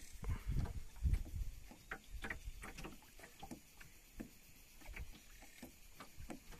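Water slapping and knocking against the side of a small metal fishing boat: irregular light knocks and clicks, with a few heavier low thumps in the first second and a half.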